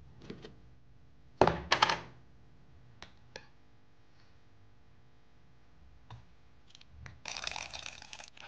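Plastic jar lids, a metal spoon and a plastic mug knocking and clicking on a tabletop, with the loudest clatter of a few sharp knocks about a second and a half in. Near the end, water is poured into a plastic mug with a splashing hiss.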